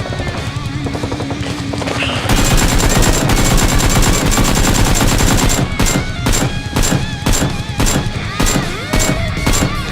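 Gunfire sound effects: a sustained burst of rapid automatic fire starts about two seconds in, then breaks into separate shots, roughly two or three a second, over background music.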